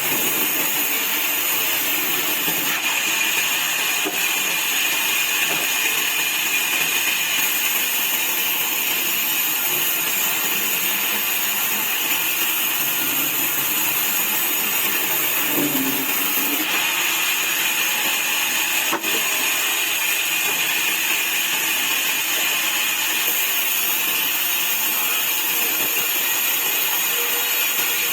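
Sawmill saw running steadily while cutting wood into slats: a constant high hiss that grows a little stronger a few seconds in and again past the middle.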